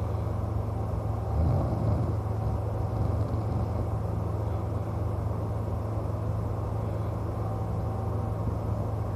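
A steady low rumble, with one louder snore from a sleeping man about a second and a half in.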